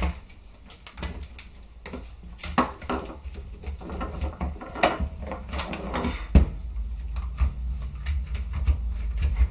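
Irregular clicks, taps and knocks of the plastic and metal parts of an SRC G36K airsoft rifle being handled, with a louder knock about six seconds in.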